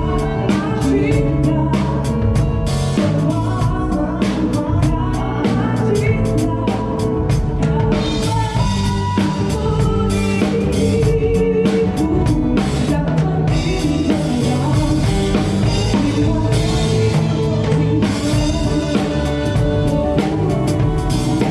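A live band playing a song at a sound check: drum kit keeping a steady beat under bass and keyboard or guitar, with a woman singing over it.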